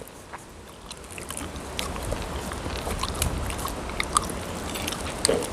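Close-up chewing and crunching of food, with scattered short crisp clicks, over wind rumbling on the microphone that grows louder about a second and a half in.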